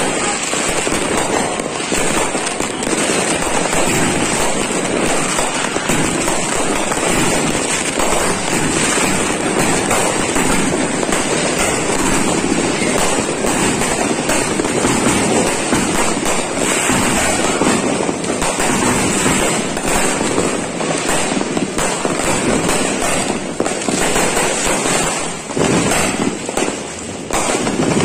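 Aerial fireworks exploding in a dense, continuous barrage of bangs and crackling, thinning out into more separate pops near the end.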